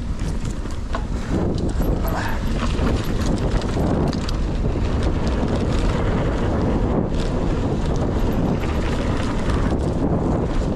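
Wind rushing over the camera microphone as a mountain bike rides a downhill trail, with tyre noise and the bike rattling over bumps; sharp clicks and knocks in the first two seconds.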